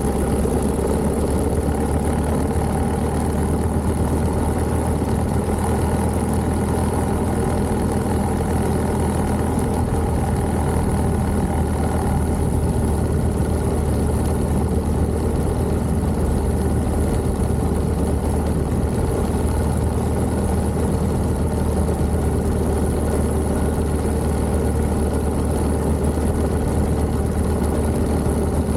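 Engine of a 1929 Méray motorcycle with a JAP 600 cc single-cylinder engine, running at a steady, unchanging pace.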